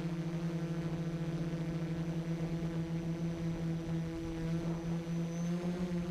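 FPV quadcopter's electric motors and propellers humming steadily in flight, heard close from the onboard camera, with a fast pulsing in the hum and a faint high motor whine. Near the end the pitch rises briefly.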